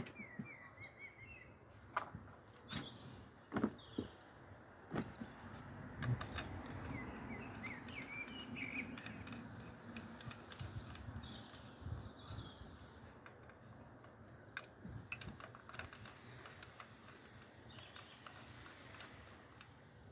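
Scattered light clicks and knocks of small parts being handled and fitted by hand, with birds chirping in the background.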